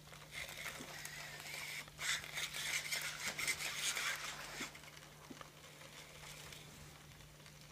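Sony AIBO ERS-210 robot dog's leg and neck servo motors whirring, with rapid gear clicks, as it rises from sitting and turns. The sound runs for about four and a half seconds and then dies down to a few faint ticks.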